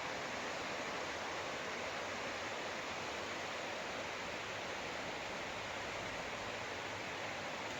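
Steady, even rush of a stream flowing over rocks.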